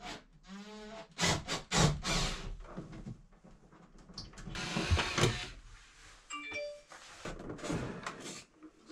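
Knocks, clicks and clattering from an old wall-mounted mirror cabinet being handled, its doors and shelves bumped as it is opened and gripped, with a few brief ringing tones a little past the middle.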